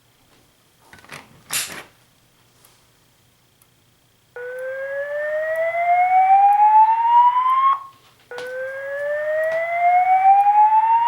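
Wheelock ET-1080-R fire alarm speaker sounding the slow whoop evacuation tone: two long tones, each rising steadily in pitch and then cutting off, the second starting right after the first. A short burst of noise comes about a second and a half in, before the tone begins.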